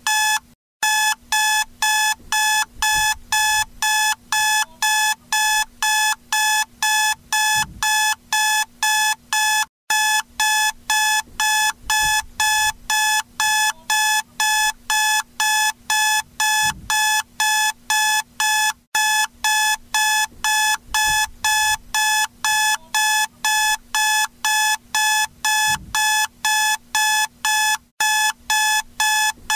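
Electronic alarm clock beeping: a fast, even run of identical beeps, about three a second, pausing briefly about every nine seconds. It is a wake-up alarm signalling that the timed nap is over.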